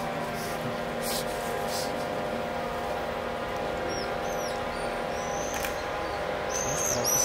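Truck-mounted crane's diesel engine running steadily with a hum. From about four seconds in, birds chirp with short high calls, more often near the end.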